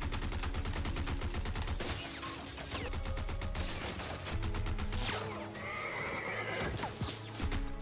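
Movie soundtrack of a Gatling gun firing a rapid, unbroken stream of shots, with a horse whinnying loudly about five seconds in.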